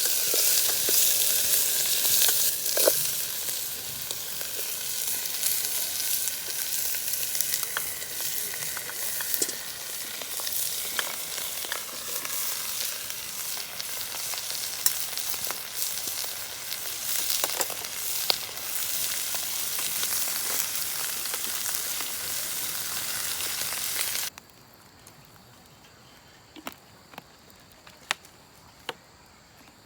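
Food sizzling and frying in a pan, with the occasional click of a utensil stirring. The sizzle stops suddenly near the end, leaving a few light clicks and clinks.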